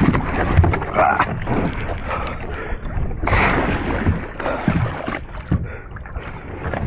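Water splashing and sloshing against a small beach catamaran's hulls as a swimmer hauls himself back aboard, with scattered knocks on the hull and a louder splash about three seconds in.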